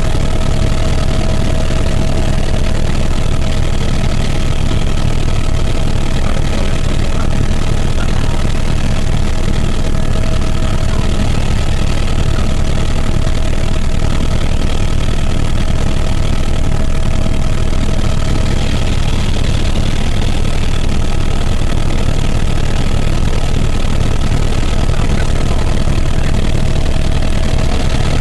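Helicopter engine and rotor noise heard from inside the cabin in flight: a loud, steady drone with a faint steady whine above it.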